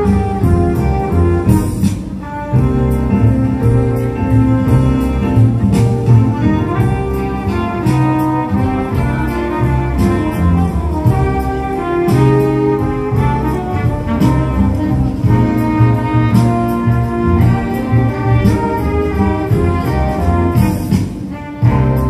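A Christmas music medley in a brass arrangement, played back loud for a synchronised light show. The music is continuous, with a dip near the start and another near the end where it changes.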